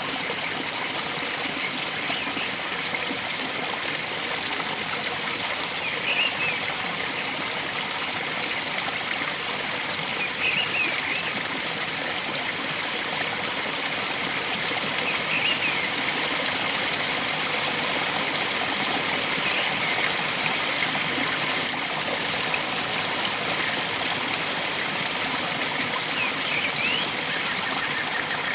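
Stream of water flowing steadily, with short bird calls every few seconds over it.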